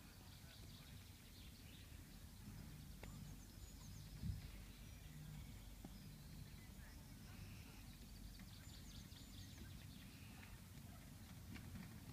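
Near silence: open-air room tone with a low rumble, faint bird chirps and one soft knock about four seconds in.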